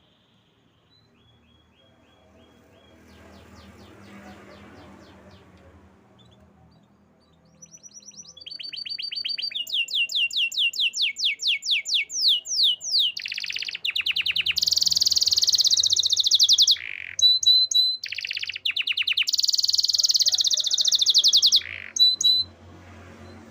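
Canary singing: a long song that starts about a third of the way in, made of fast trills and rapidly repeated high notes, some phrases sweeping downward, growing into dense, loud rolling trills toward the end.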